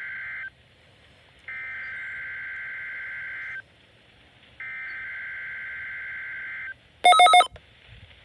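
Emergency Alert System SAME digital header on NOAA Weather Radio: shrill warbling data bursts, each about two seconds long with a second's pause between. The first ends just after the start and two more follow. About seven seconds in comes a brief, much louder buzzing tone.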